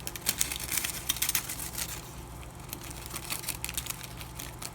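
Handling noise of a packet of replacement clock hands: rustling and crinkling of the plastic packaging and light clicks of the small metal parts, busiest in the first two seconds. A steady low hum runs underneath.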